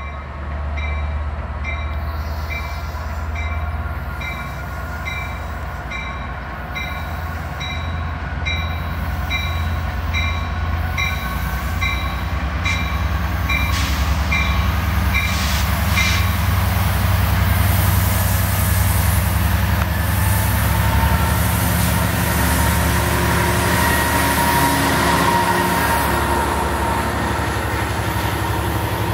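Metrolink diesel locomotive pulling a commuter train away from the station, its engine drone growing louder as it approaches and passes, followed by bilevel passenger coaches rolling by close up. A bell dings steadily, a little more than once a second, until about halfway through.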